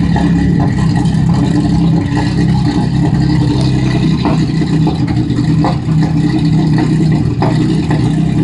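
Lexus SC300's 2JZ-GE straight-six idling roughly and unevenly, broken by irregular sharp pops a few times. With one connector left unplugged, the owner describes it as backfiring a lot.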